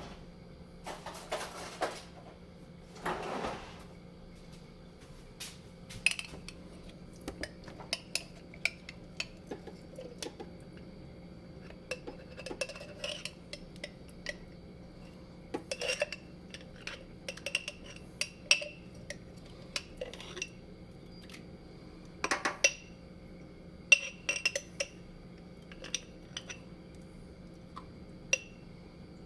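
Kitchen dishes and utensils clinking and knocking: a couple of brief brushing noises in the first few seconds, then a long irregular run of light clinks and taps. A faint steady hum runs underneath.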